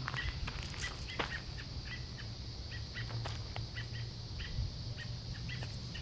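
Parent songbirds giving short, sharp alarm calls over and over, about two a second, agitated at people and a dog close to their fallen fledglings.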